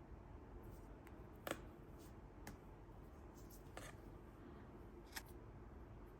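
A few short, sharp clicks and taps from handling small objects, the loudest about a second and a half in, over a faint low hum.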